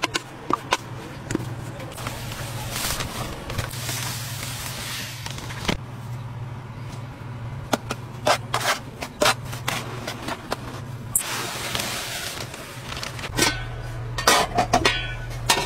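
Metal kitchen utensils clinking and scraping against stainless steel trays, in scattered sharp clacks with a cluster near the end, over a steady low hum with two stretches of hiss.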